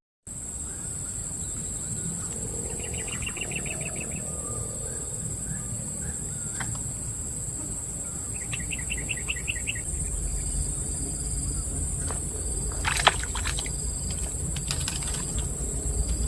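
Outdoor ambience: a steady high-pitched insect drone, with a bird's rapid trill twice, about three and eight seconds in, and a sharp click near the end.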